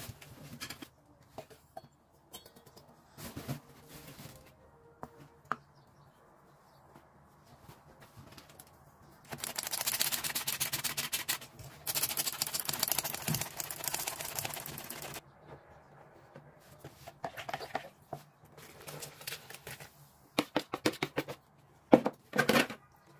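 Flour being sifted into a bowl: a rapid, scratchy rasping made of fine quick ticks, in two stretches of a few seconds each in the middle, with scattered clicks and knocks around it.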